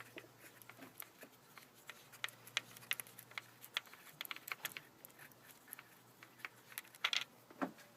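Socket wrench working the valve cover bolts on a Nissan Sentra engine: irregular light clicks and taps of the ratchet and socket, in short clusters, with a louder knock about seven seconds in.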